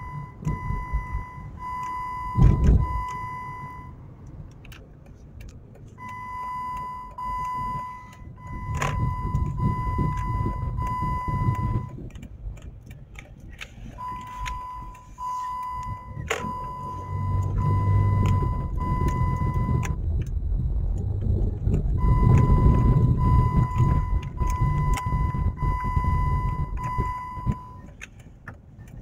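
Repeated electronic beeping, about two beeps a second, in runs of about six seconds with two-second pauses, over the low engine and road noise of a 2007 Jeep Grand Cherokee driving, heard from inside the cabin. A loud thump about two and a half seconds in.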